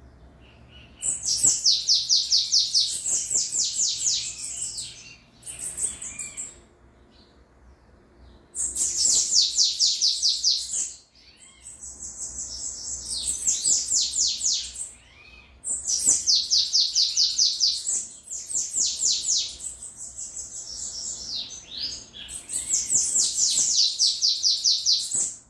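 Caged sibite songbird singing phrases of fast, high-pitched repeated notes, each phrase a few seconds long, with short pauses and quieter notes between them.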